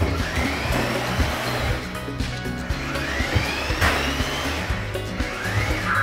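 Small electric motor of a Sharper Image Burnout Drifter remote-control toy car whining, rising and falling in pitch several times as it speeds up and slows, over background music.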